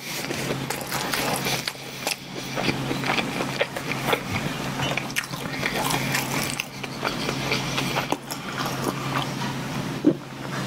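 Close-miked chewing of bread, a dense run of wet mouth clicks and crackles, giving way to swallows of milk from a glass in the second half, with one sharp click near the end.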